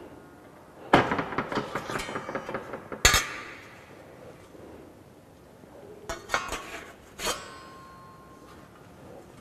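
Steel parts of a manual sheet-metal folding machine clanking as they are handled: a clank with a short rattle about a second in, another ringing clank about three seconds in, then a few lighter clinks and one more ringing clank later on.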